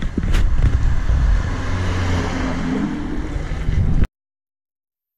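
Roadside outdoor noise: a vehicle engine running nearby under a deep rumble on the microphone, with a steadier low hum in the middle. It cuts off suddenly to dead silence about four seconds in.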